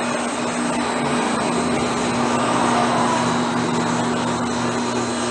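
A steady mechanical drone: an even whooshing noise over a constant low hum.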